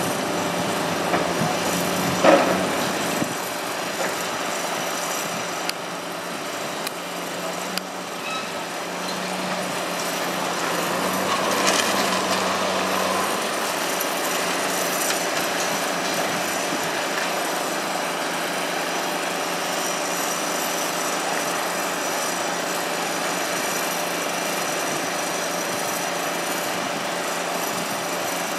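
Tracked demolition excavator working on a concrete multistorey car park: a steady diesel engine hum under the crunching and clatter of concrete being broken by the jaw attachment and rubble falling, with a sharp crack about two seconds in.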